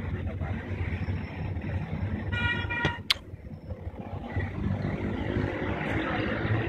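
A vehicle horn toots once, for about half a second, a little over two seconds in, over a steady low background rumble of traffic; a single sharp click follows just after.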